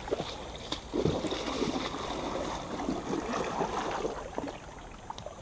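Water splashing and gurgling around a kayak, with scattered small knocks and faint voices in the distance.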